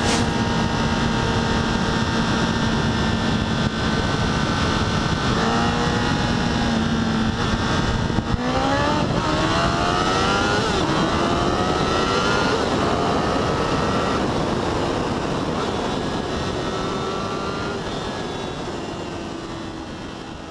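Honda CBR1000RR Fireblade's inline-four engine under way, first holding a steady note, then revving up sharply in rising pitch about eight seconds in as it accelerates, before settling to a steadier note. The sound fades away near the end.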